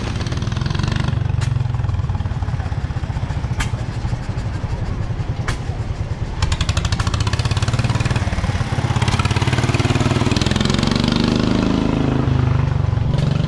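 Small engine running with a rapid, steady firing beat; about six seconds in a faster, louder firing joins it. A few sharp clicks in the first half.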